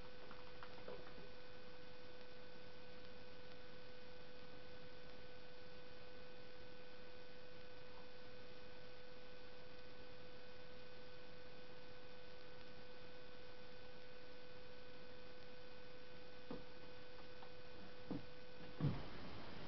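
Steady electrical hum over a faint hiss, with a few soft knocks near the end; the hum cuts off just after the loudest knock, shortly before the end.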